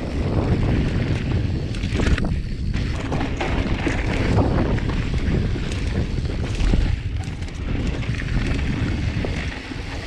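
Wind buffeting the microphone as a mountain bike descends a dirt trail at speed, with frequent knocks and rattles from the bike over rough ground.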